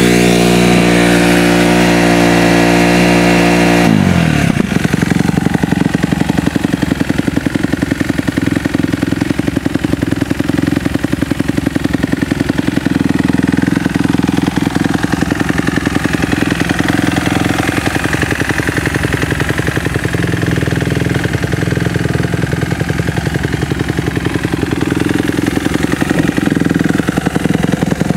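2015 Kawasaki KX250F's four-stroke single-cylinder engine running at a held, raised speed, then dropping back to idle about four seconds in, and idling steadily with an even firing beat.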